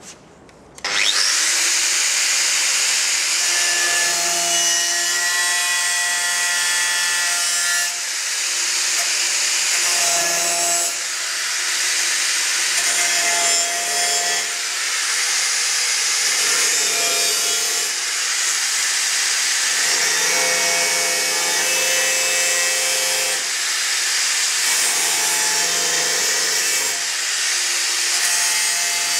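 An angle grinder with a 5-inch cutting wheel starts about a second in and cuts through car-body sheet steel: a loud, steady grinding with a whine whose pitch shifts every few seconds as the wheel bites and eases. It cuts only through the outer layer of two sandwiched panels.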